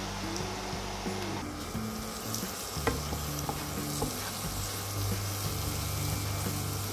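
Onion paste and ginger-garlic paste sizzling as they fry in hot oil in a nonstick pan, stirred with a wooden spatula that knocks against the pan a few times about three to four seconds in.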